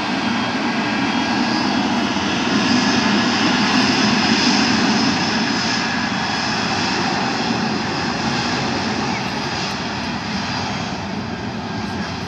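Jet engines of a Malaysia Airlines twin-engine widebody airliner running at high power on the runway: a loud, steady roar with a high whine in it, swelling to its loudest about four seconds in and then slowly easing.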